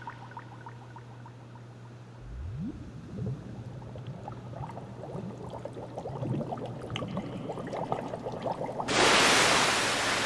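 Bubbling, gurgling water sound effect: many short rising bubbly glides and small pops over a low steady hum. About nine seconds in, a sudden loud rushing noise takes over.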